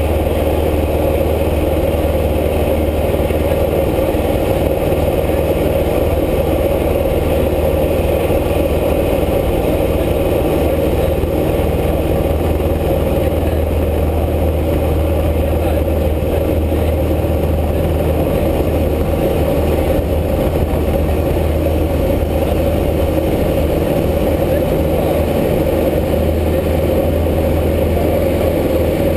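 Light training aircraft's engine running steadily at takeoff power, heard inside the cockpit.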